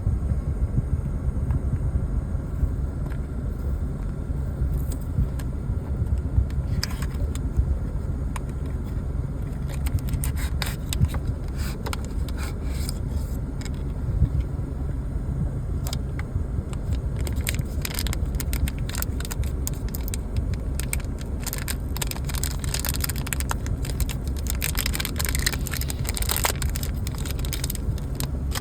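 Packaging of a vape device being handled and opened: clicking, crackling and scraping, busiest in the second half, over a steady low rumble.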